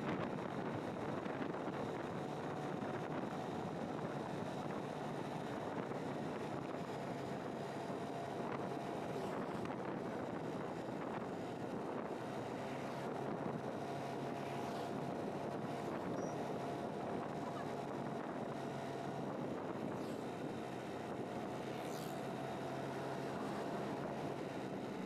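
Motorcycle cruising steadily on the road: engine and tyre noise under a constant rush of wind on the microphone, with a faint steady whine.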